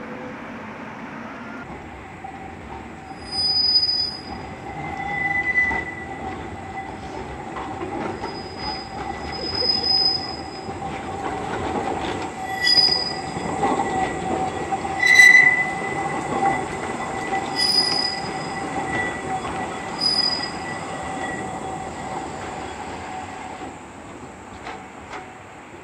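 Tram wheels squealing on a tight curve of the track: a steady squeal with shriller squeals flaring up every few seconds, loudest about halfway through, fading near the end.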